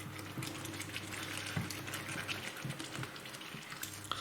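Thick curry sauce bubbling in a pan: a steady hiss with scattered small pops, over a low steady hum.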